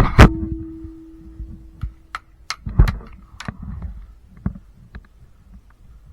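Airsoft guns firing: a few loud sharp shots at the start and again near three seconds in, with lighter scattered clicks between. A single steady ringing tone holds for about two seconds after the second shot.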